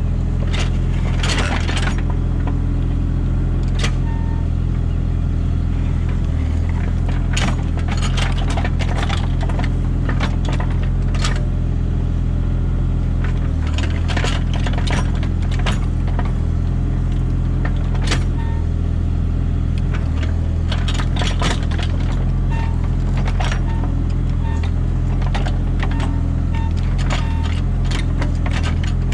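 Mini excavator's diesel engine running steadily under load, with frequent irregular metallic clanks and scrapes from the machine working as it digs.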